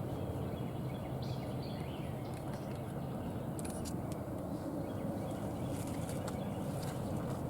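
Outdoor field ambience: a steady low rumble with a few faint bird chirps and scattered light clicks.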